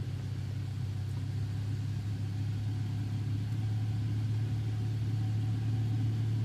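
BMW 550i's N63 twin-turbo V8 idling steadily just after being started, heard from inside the car's cabin.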